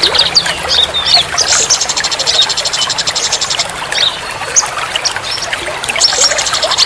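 Several small songbirds singing at once: very fast trills of about twenty notes a second, overlapping with short sharp chirps.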